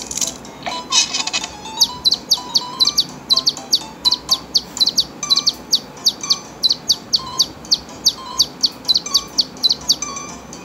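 A newly hatched chick peeping, a fast run of short falling peeps about four a second, over faint light background music, played back through a TV speaker.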